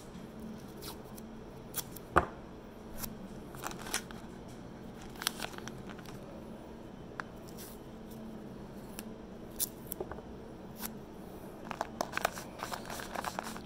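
Handling noise of surgical tape going over the injection site on a plastic rice pouch: scattered small clicks, rustles and crinkles of tape and pouch being handled and pressed down, with one sharper click about two seconds in and a busier run of them near the end. A faint steady hum sits underneath.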